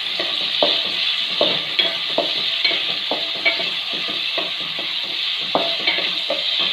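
Chopped tomatoes, shallots and green chillies sizzling in hot oil in a metal pan, a steady hiss. A wooden spatula scrapes and taps against the pan two or three times a second as they are stirred.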